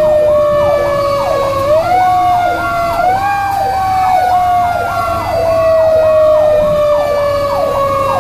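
Sirens of a 2002 Pierce Lance heavy rescue truck, heard from inside its cab while it responds to a call. A rapid yelp sweeps about twice a second over a steadier siren tone, which slowly falls and rises briefly about two and three seconds in, above a low engine and road rumble.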